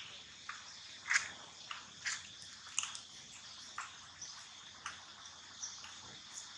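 Dry leaf litter crackling in short, irregular snaps, about one a second, as macaques move and shift over it. A steady high insect drone runs underneath.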